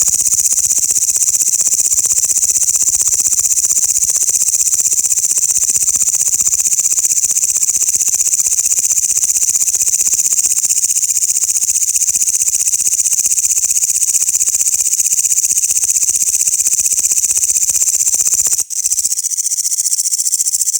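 Grasshoppers stridulating: a loud, continuous high-pitched buzz made of rapid pulses, with a brief break near the end before it resumes.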